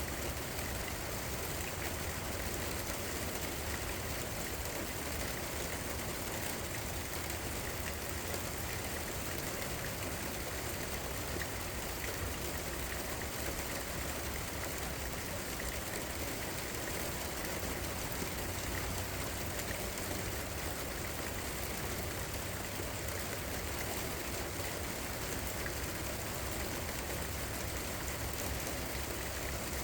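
Steady rain falling, a continuous even hiss of drops with no breaks, over a low steady rumble.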